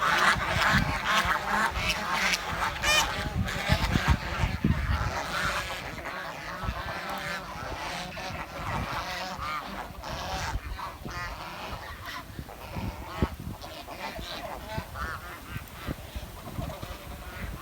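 Swans calling: many short, overlapping chirping calls, thick and loud for the first six seconds or so, then sparser and fainter.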